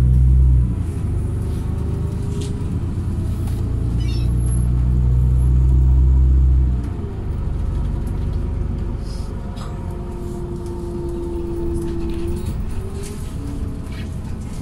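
A city bus running at road speed, heard from inside the passenger cabin: a deep engine and road rumble that drops off about seven seconds in, with whining tones shifting in pitch and a few light rattles.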